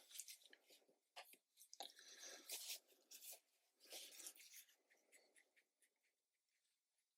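Faint, scratchy strokes of a paintbrush on cotton watercolour paper, a series of short brushing sounds in the first five seconds that then die away.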